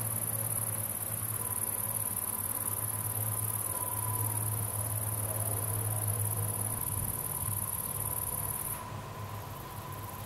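Steady, high-pitched insect chirring that fades out about nine seconds in, over a low steady hum.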